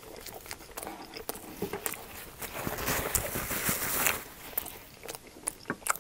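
Close-miked chewing of a mouthful of steak and cheese quesadilla, with small wet mouth clicks. Midway, a paper napkin rustles against the mouth as he wipes it for about a second and a half; this is the loudest part and stops abruptly.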